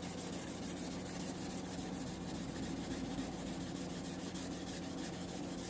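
600-grit wet sandpaper rubbing over car clear coat in fast, even back-and-forth strokes, smoothing the paint down.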